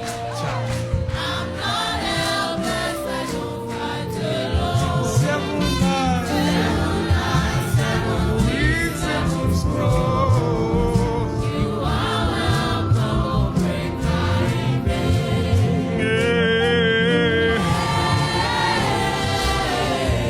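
Gospel worship chant music: a choir singing held, gliding lines over sustained chords and a steady beat. About sixteen seconds in, a voice holds a wavering note for a second or so.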